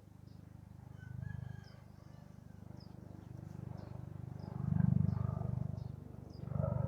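Outdoor ambience: a short high chirp repeating about every half second over a steady low rumble, with louder animal calls about a second in, around five seconds in and near the end.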